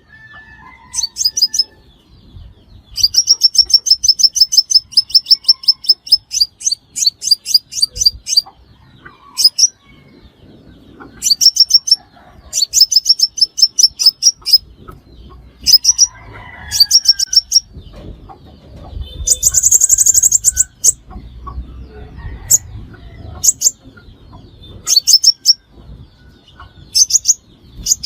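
A sunbird calling in short, high-pitched trills of rapid chips, repeated every second or two with brief pauses, and a harsher, rasping burst about two-thirds of the way through. This is the lure call played to draw sunbirds to a trap.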